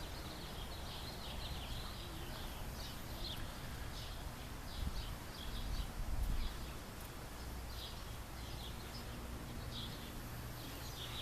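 Small birds chirping in short, scattered calls over a steady low outdoor rumble, which swells briefly about halfway through.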